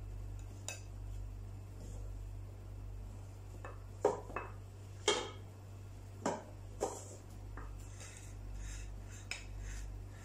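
A spatula clinking and scraping against a plate and cooking pot as a thick sweet paste is spread and shaped. There are several sharp, irregular clinks over a steady low hum.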